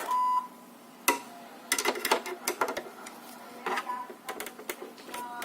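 Clicks, knocks and rattles of an all-in-one PC's plastic and metal parts being handled and prised apart during disassembly, in irregular clusters, after a brief high whine at the very start.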